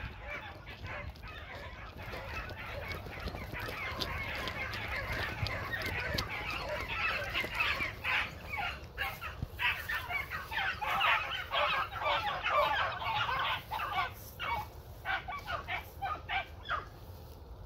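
A pack of beagles baying in chorus while running a rabbit's scent trail: many overlapping short yelps and bawls that grow louder and more broken up from about halfway through.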